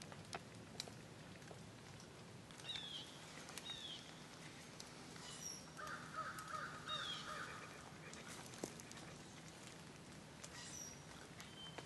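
Faint wild birds calling in woodland: several short descending chirps, and a quick run of pulsed notes a little past the middle, with a few soft clicks.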